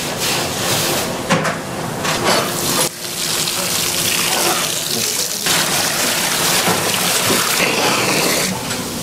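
Tap water running and splashing into a kitchen sink, the splash changing character a few times.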